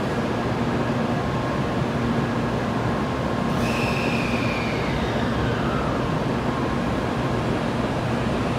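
N700-series Shinkansen train starting to pull out slowly from the platform, a steady hum and rumble of the train. About three and a half seconds in, a high whine glides down in pitch over two seconds.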